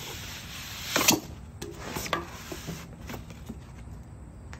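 Cardboard packaging being handled and its flaps pulled open, with a loud scraping rustle of cardboard about a second in, then scattered light knocks and scrapes.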